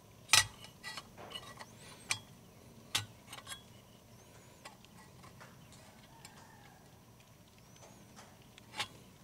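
Light clicks and taps of a speedometer dial face being handled and seated in its gauge housing by hand. The sharpest click comes about half a second in, with others near two and three seconds and one more near the end.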